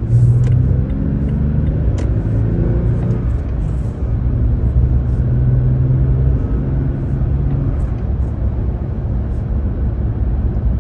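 Toyota Tacoma engine running under load as the truck is driven, with a brief dip in level about four seconds in before it pulls again.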